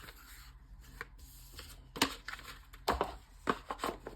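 Rustling of watch packaging being handled, with several sharp clicks and knocks from about two seconds in.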